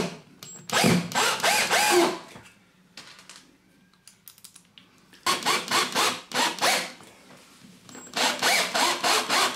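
Milwaukee right-angle drill driving screws through the base plates of the bath's adjustable feet into the floor, running in three short bursts of about a second and a half each with pauses between.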